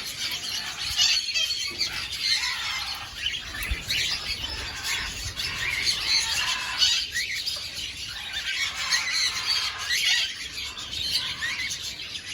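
A flock of cockatiels chirping and squawking together, a continuous chatter of many short overlapping calls.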